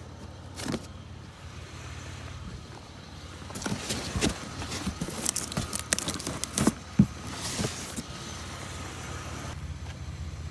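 Vehicle engine idling with a steady low hum. In the middle comes a run of knocks, clinks and rattles from junk being handled, one knock louder than the rest.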